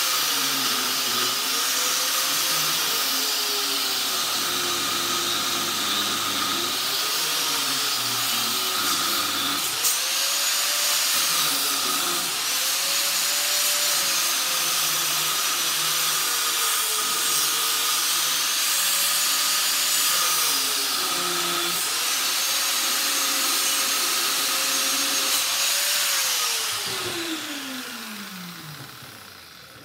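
Small corded electric grinder cutting into the steel core of a transformer to free its copper coils. Its high whine sags in pitch each time the cut loads the motor and recovers when eased off, several times over. About 26 seconds in it is switched off and winds down.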